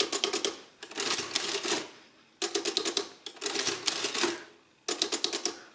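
Everest Plurima Manuale adding-listing machine, made by Serio around 1960–65: its number keys are pressed and its hand crank pulled, and the mechanism clatters as it prints each number and adds it to the register. The clattering comes in three bursts of rapid clicking.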